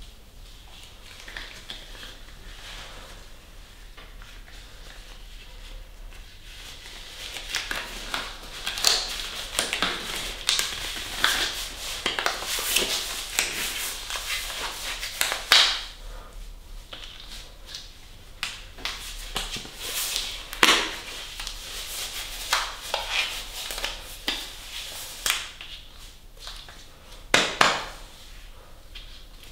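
Green surgical gloves being pulled on and worked over the hands: rubbery stretching and rubbing, with several sharp snaps. The rubbing grows busier about a quarter of the way in.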